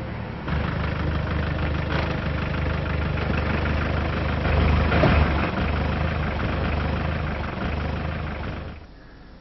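Engine of a four-wheel-drive SUV running at idle after it pulls up. It gets louder about half a second in, swells briefly in the middle, and cuts off abruptly near the end.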